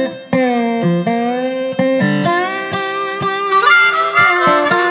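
Background music: a harmonica playing sustained, bending notes over a plucked guitar.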